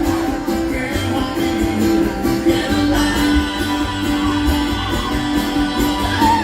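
Acoustic string band playing a song: strummed acoustic guitar keeping a steady beat, with held notes over it.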